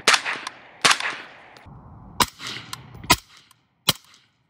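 Suppressed 5.56 short-barreled rifle shots through an RD USA LS5 full-size titanium suppressor. Two sharp shots come about a second apart near the start, each with a short ringing tail, then three more about a second apart after a brief pause.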